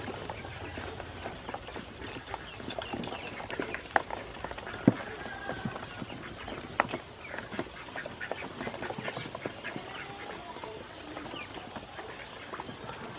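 A group of ducklings peeping continuously as they dabble in a shallow plastic basin of water. A few sharp knocks stand out, about four, five and seven seconds in.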